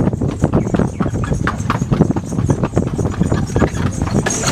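A carriage horse's hooves clip-clopping on a paved lane as it pulls the carriage, several even strikes a second over a steady low rumble.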